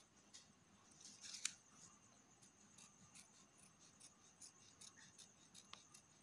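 Scissors snipping through thin colour paper: a run of faint, short snips as slits are cut one after another, the loudest cluster about a second in.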